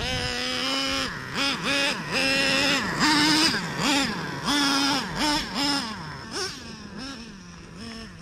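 Traxxas Revo 3.3 RC truck's nitro engine revving up and down in short throttle bursts over and over while driven on rough dirt, its high engine note rising and falling with each blip. It gets quieter over the last couple of seconds.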